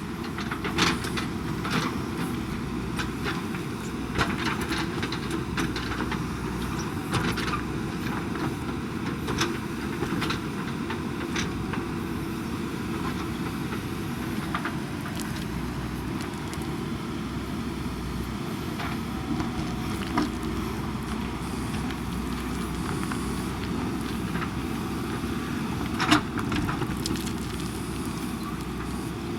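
JCB backhoe loader's diesel engine running steadily, with scattered sharp knocks and clanks, one loud knock near the end.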